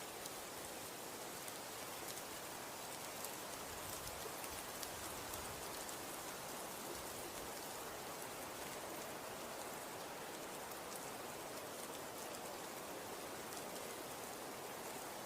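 Snowstorm ambience of wind and snow: a steady hiss with fine, dense ticks of snow grains striking, and a slight low swell of wind about four seconds in.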